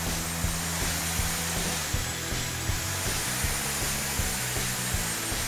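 Background music with a steady beat, over the continuous hiss and high whine of a power tool working wood.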